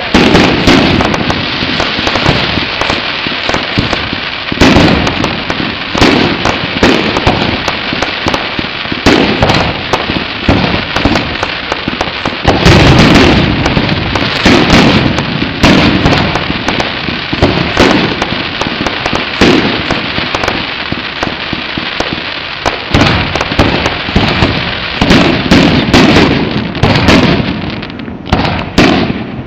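Fireworks display: a dense, unbroken run of crackling and sharp bangs, with heavier booming stretches about halfway through and again near the end.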